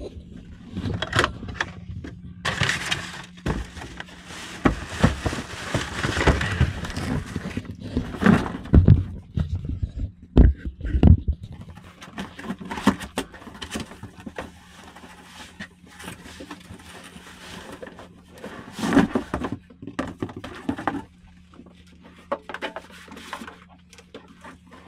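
Cardboard box being opened and an air fryer unpacked: rustling paper and cardboard packaging, scraping and sharp knocks, busiest in the first half. A steady low hum runs underneath.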